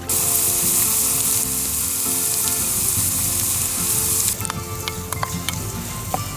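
Sausage frying in hot fat in a pan, a loud sizzle that starts suddenly. About four seconds in it settles to a quieter sizzle with scattered pops and crackles.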